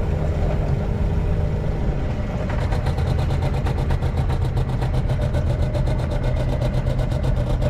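Hangkai 12 hp outboard motor running steadily at low throttle, pushing the small boat slowly along.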